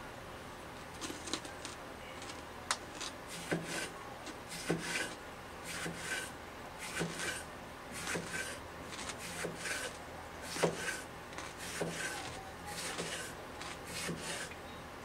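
Kitchen knife working a cucumber on a wooden cutting board: short rasping scrapes and sharp knocks of the blade against the wood, roughly one a second and uneven.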